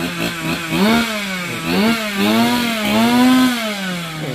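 Two-stroke chainsaw engine running and being revved, its pitch rising and falling several times, then sinking near the end as the throttle comes off.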